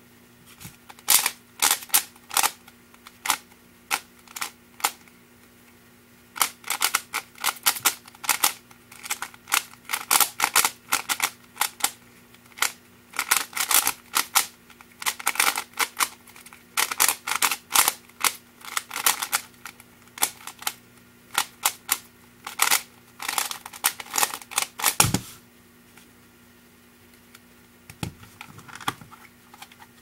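Freshly tensioned DIY 3x3 Rubik's cube turned fast in a speed solve: rapid clicking and clacking of the plastic layers in quick runs with short pauses. About 25 seconds in, one sharp thump as the solve ends.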